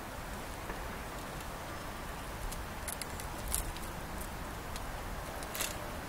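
Grazing sheep off camera: scattered light clicks and clinks, a few at a time, over a steady rushing background noise.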